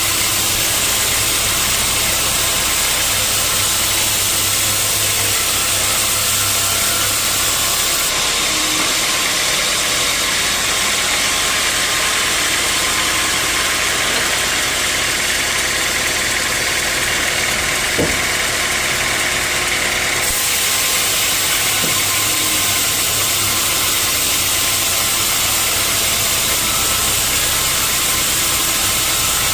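Sawmill machinery running steadily with a loud, even noise. The higher part of the sound shifts about eight seconds in and settles back near twenty seconds, and there is a single sharp knock at about eighteen seconds.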